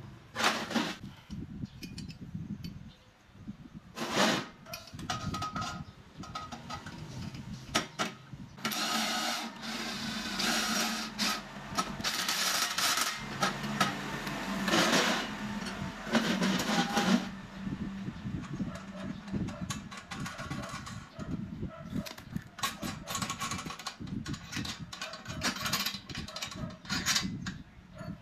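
Steel angle-iron parts clanking, knocking and scraping against each other and against a steel workbench as the frame and its bolted pivot bracket are handled and fitted together.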